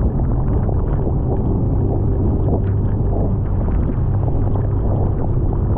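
Engine of a rigid inflatable boat running steadily under way, a low even drone, over rushing wind and water noise with scattered splashes.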